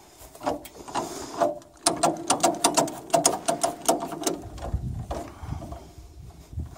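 Quick series of metallic clicks and clinks from a Fiat 54C tractor's rusty three-point hitch linkage and chains being handled while a plough is attached, densest for a couple of seconds midway, with dull low thumps near the end.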